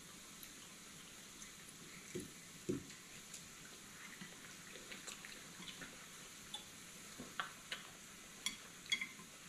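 Mookata pan bubbling and sizzling softly, with scattered light clicks of chopsticks and utensils on dishes, a few louder near the end.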